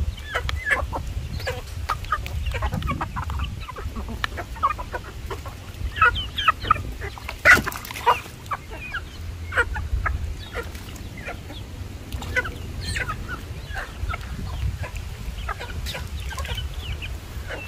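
Chickens clucking in many short, scattered calls, with one loud, sharp burst about halfway through and a steady low rumble underneath.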